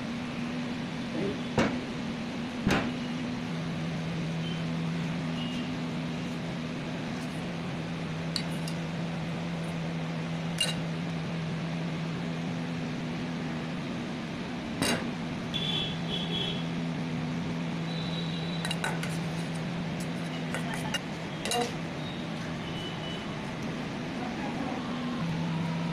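Steady low hum, with a handful of short, sharp clinks and taps of steel kitchenware scattered through it.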